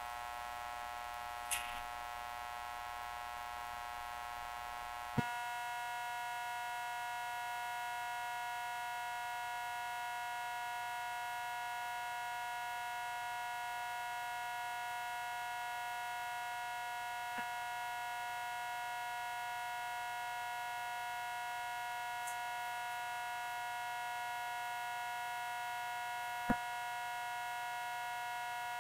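Steady electrical hum made of several fixed tones. Its pitch pattern changes abruptly with a click about five seconds in, and a few faint clicks sound later on.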